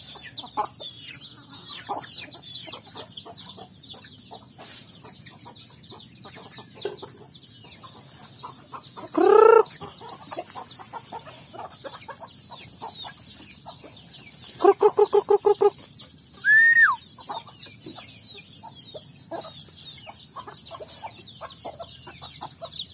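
Domestic chickens foraging: chicks peeping throughout, a single loud chicken call about nine seconds in, a rapid run of about eight clucks around fifteen seconds, then a short falling squawk.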